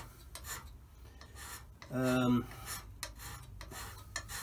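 Hand scraper taking quick, short rasping strokes across the cast-iron bed ways of a Holbrook lathe, a few strokes a second: a light finishing scrape to smooth the worn bearing face. About two seconds in, a man's voice hums one brief note.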